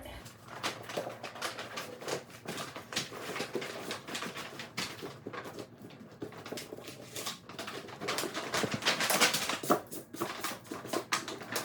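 Irregular rustling and tapping of an inflatable paddleboard being handled while it deflates through its open valve, busiest about eight to ten seconds in.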